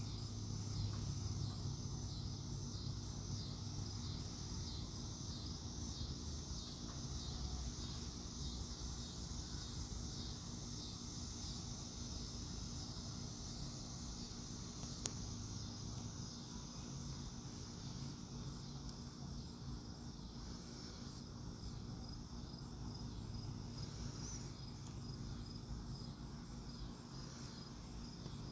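Steady high-pitched chirring of insects, like crickets, running on without a break over a low steady hum.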